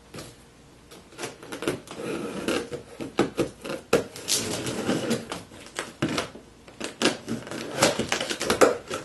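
A cardboard shipping box being opened by hand: irregular clicks, knocks and scraping rustles of cardboard and packing tape.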